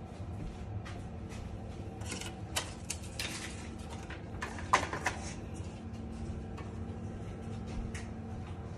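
Steady low hum with a few held tones, with scattered small clicks and knocks; the sharpest knock comes a little under five seconds in.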